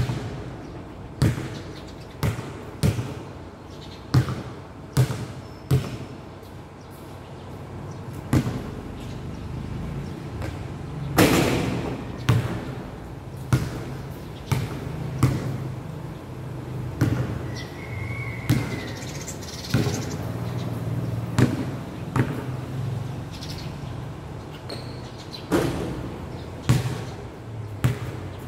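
Basketball being dribbled on a hard painted court: sharp bouncing thuds at an uneven pace, roughly one a second, with the loudest about a third of the way through.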